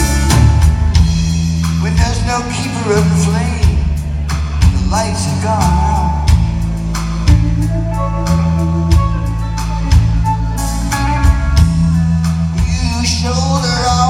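Live rock band playing an instrumental passage: electric lead guitar with bending notes over a steady drum beat and bass guitar.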